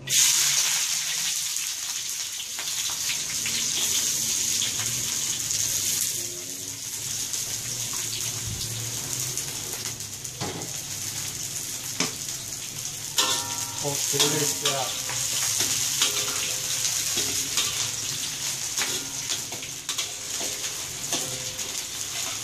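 Sliced onions and spring onions sizzling in hot oil in a steel wok, starting suddenly as they hit the oil and then frying steadily. Near the end a spatula scrapes and clicks against the wok as they are stirred.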